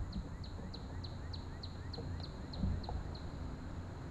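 A bird calling in a steady run of short, falling whistled notes, about three a second, that stops a little after three seconds in.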